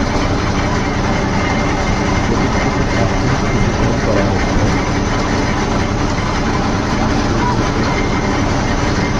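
Heavy construction machinery engine running steadily, a loud, even noise with a low hum and no breaks.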